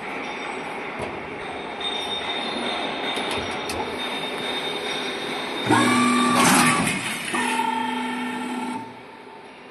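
Two-tier roll forming machine for corrugated sheet running with a steady mechanical rumble. About six seconds in it turns loud, with a steady whine and a metallic squeal for about a second, then a second steady whine for about a second and a half before it quietens.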